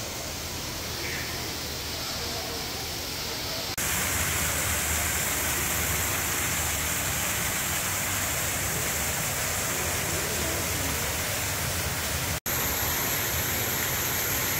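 Steady rushing ambient noise with a low hum beneath it, in a large glass conservatory. It jumps louder about four seconds in and cuts out for an instant near the end.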